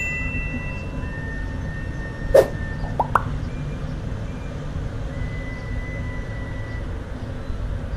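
Downtown city street ambience: a steady low rumble of traffic with faint, thin held whistle-like tones. A sharp knock comes about two and a half seconds in, followed by two short rising chirps.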